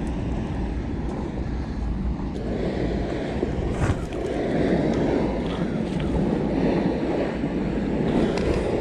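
Water rushing over a river dam spillway, mixed with wind buffeting the microphone; the rush grows fuller about two and a half seconds in.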